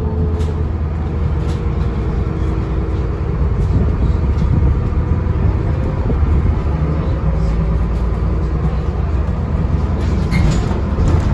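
Dennis Trident double-decker bus under way, heard from the upper deck: a steady diesel engine and drivetrain drone with road noise, its pitch shifting as the bus changes speed. A few clicks and rattles come near the end.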